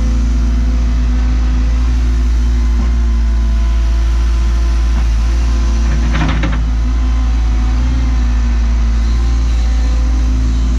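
Cat 314E excavator's diesel engine running steadily under work, with a short metallic clank a little past halfway.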